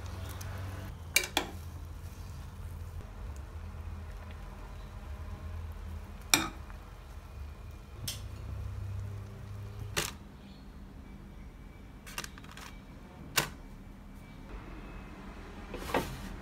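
Home cooking at a gas stove: a low steady hum with scattered sharp clicks and knocks, about ten in all, as fish cake sheets go into a pot of tteokbokki simmering on the burner.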